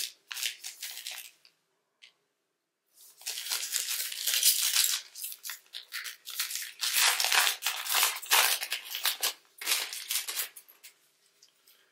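Foil wrapper of a trading-card pack crinkling and tearing as it is ripped open by hand. A short rustle at the start, a pause of about two seconds, then several seconds of dense crinkling and tearing that fades near the end.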